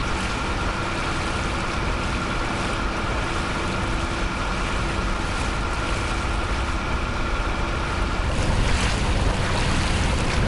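Motor yacht under way: a steady engine hum with water rushing along the hull and wind buffeting the microphone, swelling slightly about eight seconds in.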